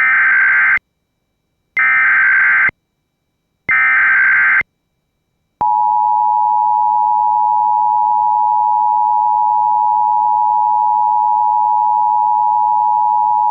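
Emergency Alert System SAME header: three short bursts of digital data tones, each about a second long with about a second of silence between them. About five and a half seconds in, the steady two-tone EAS attention signal begins and holds unbroken. Together they announce an incoming AMBER Alert (child abduction emergency) broadcast.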